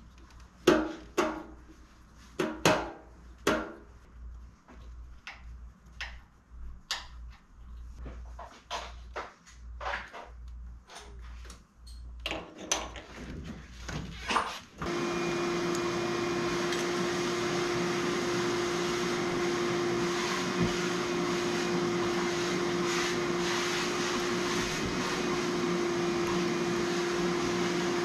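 Small parts and tools clicking and knocking. About fifteen seconds in, a motor-driven machine, such as a shop vacuum or power tool, switches on and runs steadily with a constant hum.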